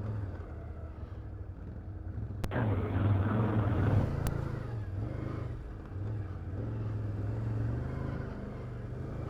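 Can-Am Outlander 850 ATV's V-twin engine running on a trail ride. It picks up throttle about two and a half seconds in, a sharp click marks the start, it is loudest for a second or so, then it eases off and settles to a steady pull.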